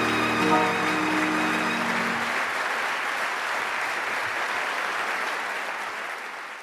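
Live audience applauding, with the last held notes of a short instrumental closing sting under it for the first two seconds or so; the applause then fades out.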